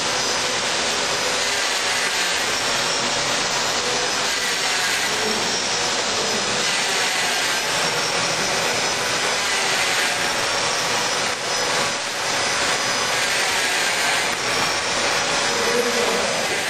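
Steady, even noise of container-manufacturing machinery running on a factory floor, with a few faint high whistling tones.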